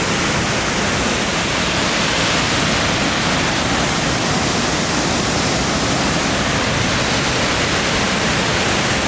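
Panther Creek Falls, a waterfall, giving a loud, steady, unbroken rush of falling water.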